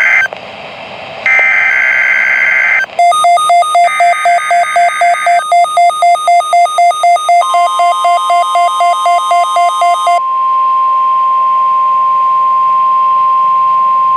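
NOAA Weather Radio weekly-test alert signals. A SAME digital header ends in screeching data bursts, the last two about a second and a half each. Then a rapidly pulsing electronic alert tone beeps about two and a half times a second, and the steady 1050 Hz warning alarm tone starts about halfway through and continues alone for the last four seconds.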